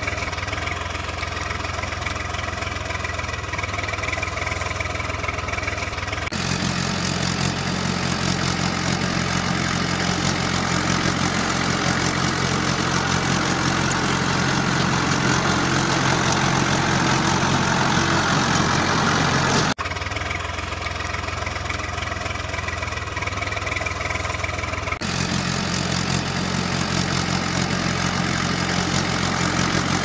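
Tractor engine sound running steadily. It changes abruptly in pitch and tone about six seconds in, again near twenty seconds and again near twenty-five seconds.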